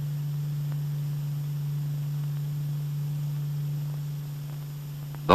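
Steady low electrical hum with faint hiss, the background hum of an old film soundtrack.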